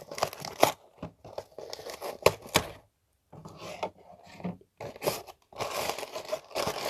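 Packaging being torn open and crinkled by hand as a box is unpacked: scattered sharp clicks and rustles, a brief pause about three seconds in, then denser crinkling near the end.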